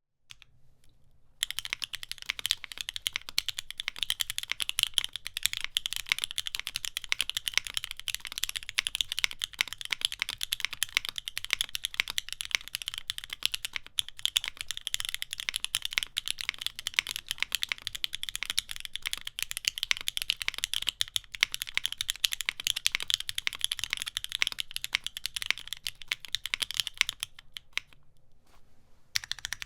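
Steady fast typing on a Neo65 mechanical keyboard (aluminium plate, no foam) with Gateron Khonsu switches that are filmed, lubed and have lubed springs, giving a clacky, loud keystroke sound. The typing starts about a second and a half in, stops shortly before the end, then resumes with a few strokes.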